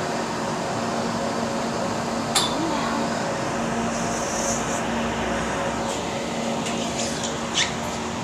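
Steady mechanical hum with a constant low tone inside a moving aerial tram cabin. There is a sharp click about two seconds in and a few more clicks near the end.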